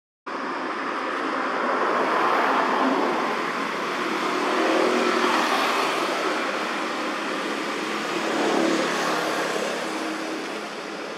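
Motor vehicle engine noise running nearby, swelling louder and easing off a few times.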